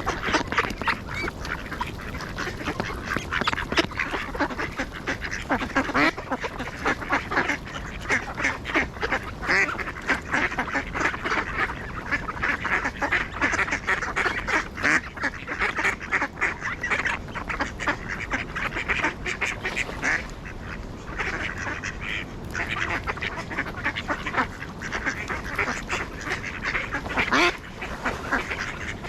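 A flock of ducks quacking, with many short calls overlapping in a steady chatter.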